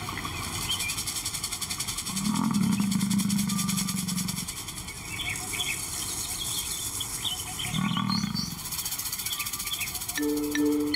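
Lion calling: a long, deep call about two seconds in and a shorter one near eight seconds, over a steady high hiss and scattered bird chirps.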